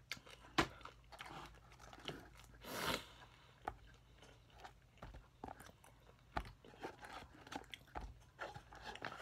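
A person chewing crisp fried chicken close to the microphone: irregular crunches and wet mouth clicks, with a longer, louder crunch near three seconds in.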